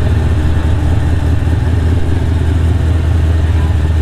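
A vehicle engine idling steadily close by: an even, low hum that does not rise or fall.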